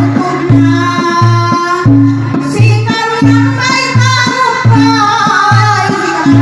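Traditional folk music with a singing voice over a repeating deep, pitched beat of about two notes a second.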